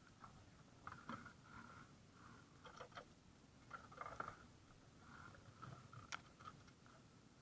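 Near silence with a few faint, scattered clicks and taps, the sharpest one about six seconds in.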